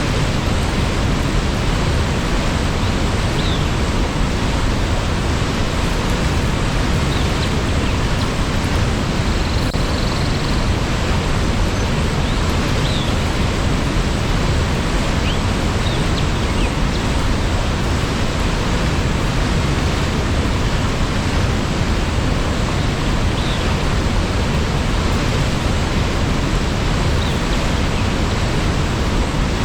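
Waterfall rushing steadily, a constant even roar of falling water, with a few faint high chirps now and then.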